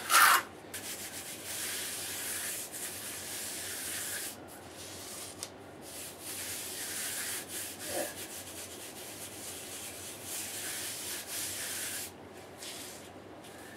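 Gloved hands rubbing and smoothing wet mortar on a concrete floor around a new floor drain: a gritty rasping in long strokes with short pauses between them. A sharp knock right at the start is the loudest sound.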